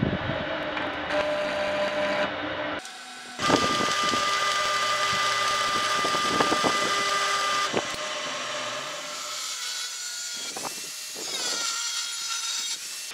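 Arc welding a steel band with a stick electrode: the arc crackles and sizzles in two runs with a short break after about three seconds. Near the end an angle grinder spins up with a rising whine and grinds the weld.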